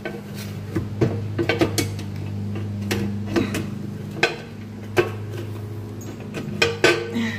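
Scattered metallic clinks and knocks of dishwasher door parts being handled and tried in place, a few single taps and a short cluster near the end, over a steady low hum.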